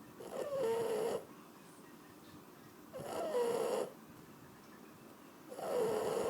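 Shar Pei dog snoring: three snores, about every two and a half to three seconds, each lasting about a second and carrying a pitched tone.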